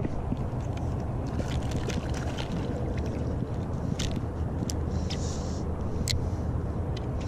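Steady low rumble of distant interstate traffic, with a few light clicks scattered through it.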